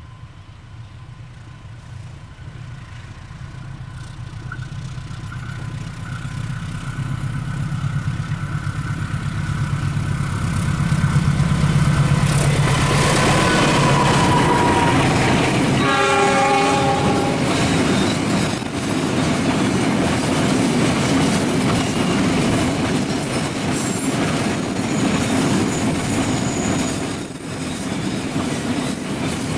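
KAI CC206 diesel-electric locomotive approaching, its engine rumble growing steadily louder, then a short horn blast about halfway through as it passes. A long train of tank wagons follows, rolling by with wheels clacking over the rail joints.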